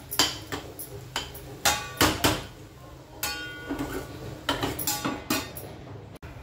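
A metal spatula knocking and scraping against a stainless-steel kadhai while stirring grated-carrot halwa: a dozen or so irregular clinks, some ringing briefly. Near the end a steel plate is set over the pan as a lid and clanks against it.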